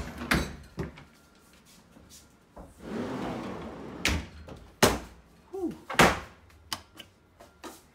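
Concealed kitchen cabinet doors on hinges being swung open and folded back, with a series of sharp knocks and clunks and a stretch of rubbing and sliding in between.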